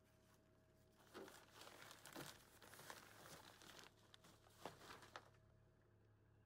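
Faint crinkling and rustling of a plastic bag, with light clicks and knocks, as hollow turkey decoys are handled against it. The rustling starts about a second in and fades out after about five seconds.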